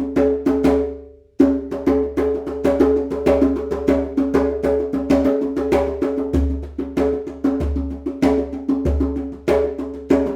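Goat-skin djembe played by hand in a fast rhythm, mixing deep bass strokes with higher tone and slap strokes. The playing breaks off briefly about a second in, then carries on.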